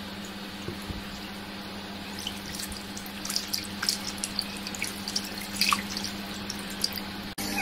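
Goldfish splashing in shallow water in a plastic basket: scattered small splashes and drips that grow busier after about two seconds, over a steady low hum.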